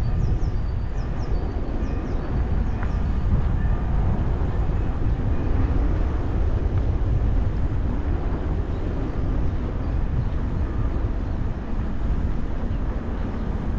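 Steady low rumble of wind buffeting the action camera's microphone and bicycle tyres rolling while riding, with a few faint high chirps near the start.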